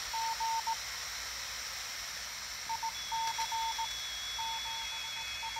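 Morse code (CW) received on a homebrew Herring Aid 5 receiver and played through a Radio Shack extension speaker. A single tone is keyed in dots and dashes over receiver hiss, with a pause of about two seconds after the first burst. A faint steady high whistle comes in about three seconds in.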